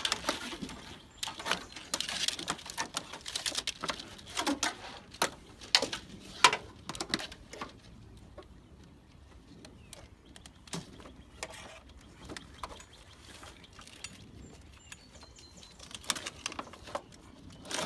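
Irregular light clicks, taps and rustles of hands handling and routing electrical wires in a truck's engine bay, busiest in the first half and fewer toward the end.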